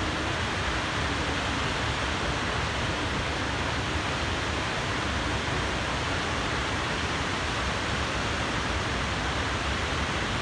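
Steady rushing of a large waterfall, the Upper Falls of the Tahquamenon River, a continuous, even noise of water pouring over a wide ledge.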